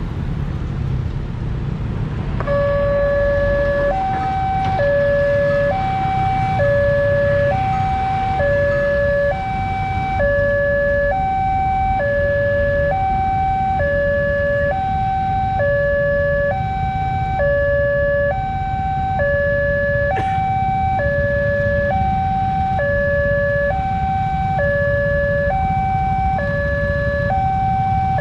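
Railway level-crossing warning alarm sounding as the crossing closes: an electronic two-tone signal switching between a lower and a higher tone about once a second, starting about two and a half seconds in. Under it is the low rumble of motorcycle traffic.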